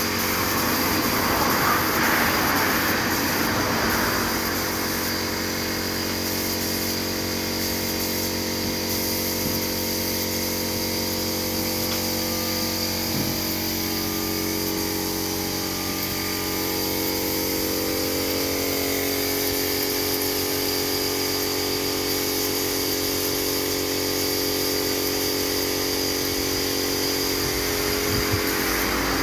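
Compressed-air spray gun hissing as it sprays finish, the hiss loudest in the first few seconds, over the steady hum of an air compressor running throughout.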